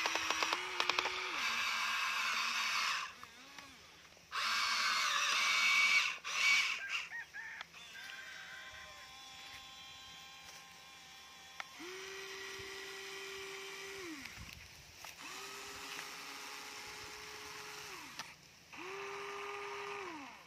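Huina remote-control toy excavator's small electric motors whining as it moves: a loud buzzing run for the first three seconds and again from about four to seven seconds in, then three shorter, steadier whines that slide up in pitch as they start and down as they stop.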